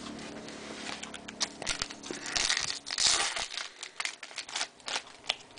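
Foil trading-card pack wrapper being torn open and crinkled by hand, a string of short crackling rustles that is loudest about halfway through.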